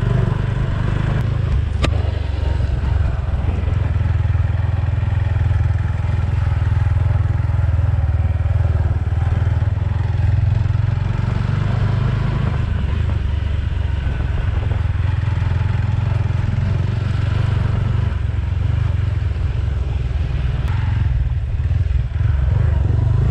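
Motorcycle engine running as the bike is ridden off-road, a steady low sound with one sharp click about two seconds in.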